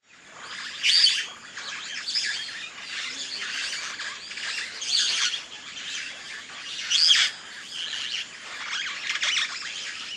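Several songbirds chirping and singing together in many overlapping calls, fading in at the start, with a few louder calls standing out, the first about a second in.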